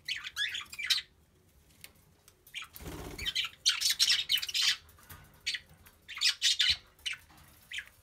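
Budgerigars chirping and squawking in three short bursts of quick, high chatter, with a brief rustle about three seconds in.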